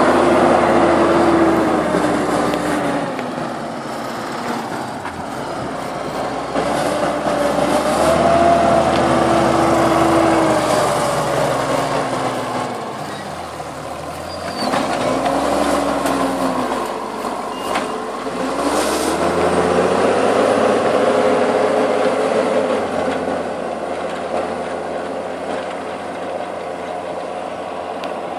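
Deutz-Fahr Agrotron 150 tractor's six-cylinder turbodiesel running while ploughing, its engine speed sagging and picking up again several times, dropping lowest around the middle.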